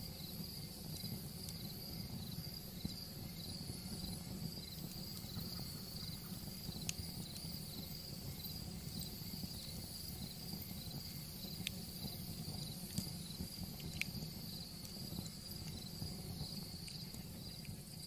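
Wood fire burning in a fireplace, a steady low rumble with a few sharp crackling pops, under a continuous high, evenly pulsing chirp of crickets.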